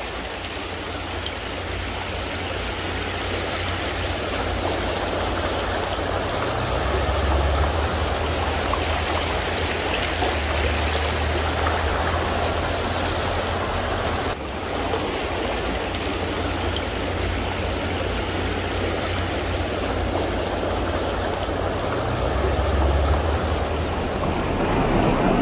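Steady rush of a creek's flowing water, with a low rumble that swells twice.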